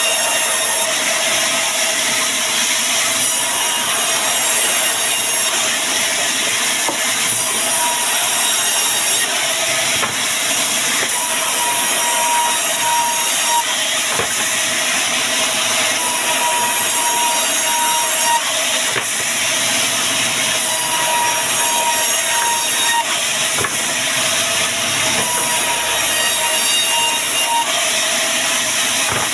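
Band sawmill cutting through wood: a steady, continuous sawing noise with no breaks.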